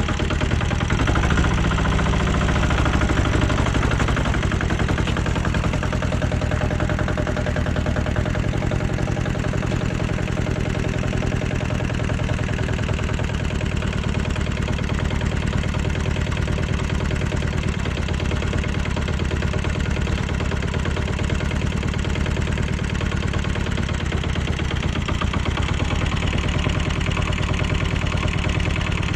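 Homemade 4x4 tractor's engine running steadily with a fast, even firing rhythm as the tractor creeps over gravel, driven through a chain drive that replaced its slipping belts.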